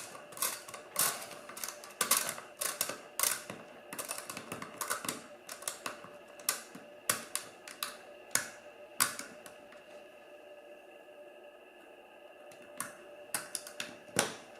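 Irregular small clicks and rattles of an ASG Scorpion Evo 3 airsoft magazine's plastic and metal parts being handled as its spring is fitted back in. The clicks come thick at first, thin out to a lull, and return with a few more near the end.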